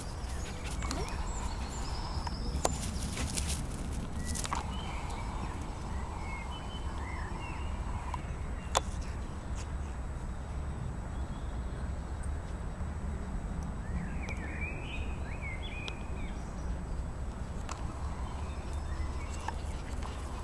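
Outdoor ambience over open grass: a steady low rumble throughout, a few faint chirps about two-thirds of the way through, and occasional sharp clicks.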